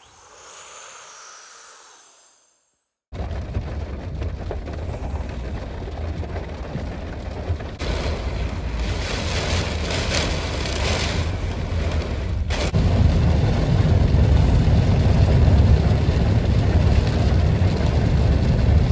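Wind buffeting the microphone: a loud low rumbling noise that starts suddenly about three seconds in and gets stronger partway through. It is preceded by a brief soft intro sound.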